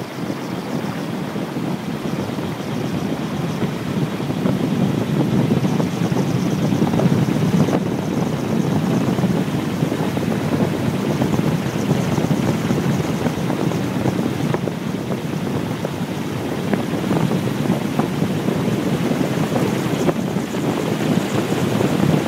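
Wind rushing over the microphone of a bicycle-mounted camera on a fast downhill descent, a steady noise that grows louder about four seconds in and swells again near the end.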